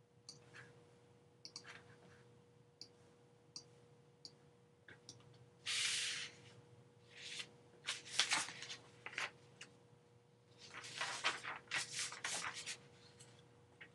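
Faint scattered light clicks, then several short scratching, rubbing bursts about six, eight and eleven to twelve seconds in, over a faint steady hum.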